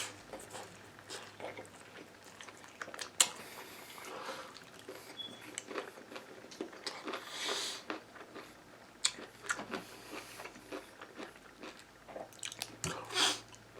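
A person chewing and biting food close to the microphone, with soft crunches and a few short, sharp clicks, the loudest about three seconds in.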